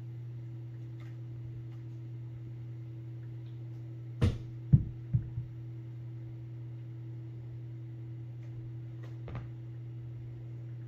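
Kitten thumping onto a carpeted cat tree: four quick thumps and knocks about four to five seconds in as it jumps down to a lower platform, and one softer knock about nine seconds in as it leaves the tree. A steady low electrical hum runs underneath.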